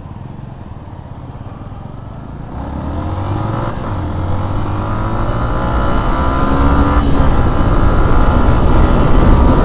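Motorcycle engine accelerating hard through the gears, its pitch climbing again and again with short breaks at each gear change and growing steadily louder, with wind rushing over the microphone as speed builds.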